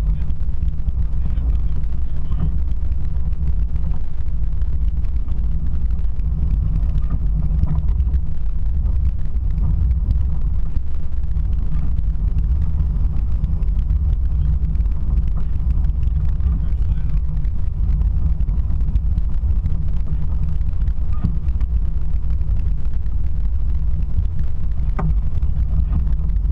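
Car driving, heard from inside: a steady low drone of engine and road noise.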